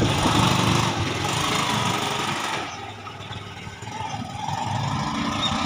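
Auto-rickshaw's small engine running as the three-wheeler pulls away. The sound is steady at first, drops off after about two and a half seconds, then rises somewhat again.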